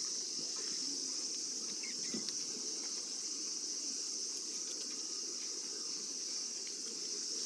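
Insects shrilling in a steady, even, high-pitched drone, with a faint low murmur of outdoor ambience beneath it.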